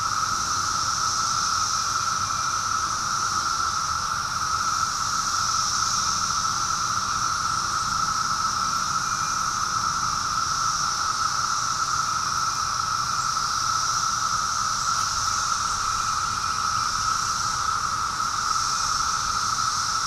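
A dense chorus of many cicadas: an unbroken, even drone with a fainter, higher hiss above it that swells a little now and then.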